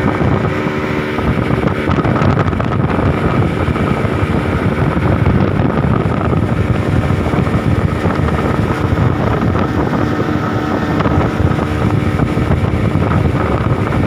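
Outboard motor of a small boat running steadily at speed, with strong wind buffeting the microphone.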